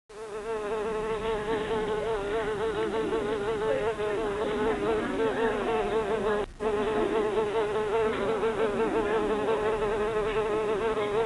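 Flies buzzing, several at once: a steady, wavering drone that starts abruptly and drops out for a moment about six and a half seconds in.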